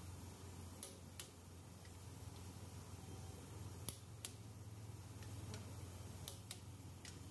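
Short, sharp metal clicks, several in close pairs every two to three seconds, from a long-handled wrench and socket being worked on the cylinder head bolts of a Toyota 1DZ diesel engine, over a steady low hum.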